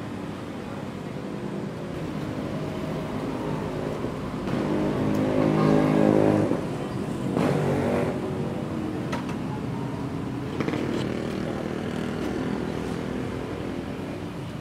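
Small sport motorcycle's engine running and revving, loudest in a rising swell about five to six seconds in, with another brief rev near eight seconds, over steady wind noise.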